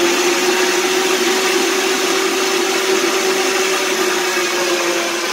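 Electric meat grinder's motor running with a steady hum while it grinds boiled liver and fried onion pushed down its feed tube.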